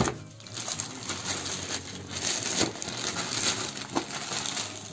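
Plastic courier mailer bag rustling and crinkling as it is torn open and handled, with a few light clicks and knocks of packaging.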